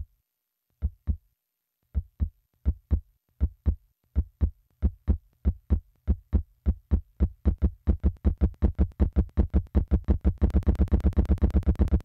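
Heartbeat sound effect: low thumps in lub-dub pairs, starting at about one pair a second and speeding up steadily until the beats race in a rapid flutter near the end.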